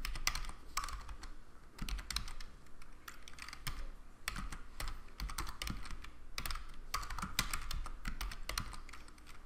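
Typing on a computer keyboard: irregular runs of quick key clicks with short gaps between them.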